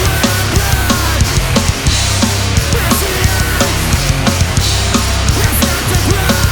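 Live heavy band playing loud and steady: distorted guitars and bass over a drum kit hit rapidly.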